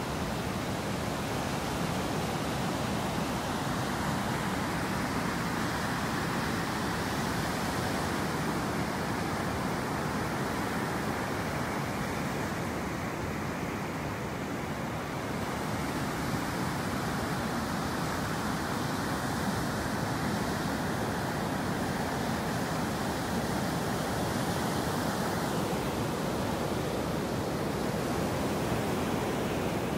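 Heavy surf, waves of about 1.2 to 1.5 metres breaking continuously on a sandy beach: a steady, unbroken rush of wave noise.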